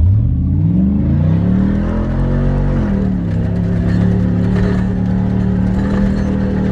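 Hummer H2's 6.0 L V8 pulling hard under full throttle in low range, its revs climbing for about three seconds, then dipping slightly and holding at a steady high pitch as it climbs a sand dune.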